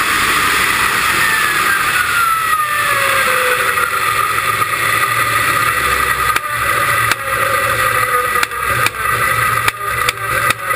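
Dragster coasting down after its run, with wind rushing past. A whine falls steadily in pitch as the car slows. From about halfway, a low rumble and sharp clicks and pops come in, more often near the end.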